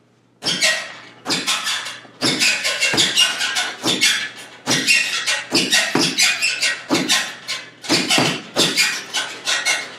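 Punches landing on a hanging heavy bag in rapid succession, a sharp smack about twice a second, starting about half a second in.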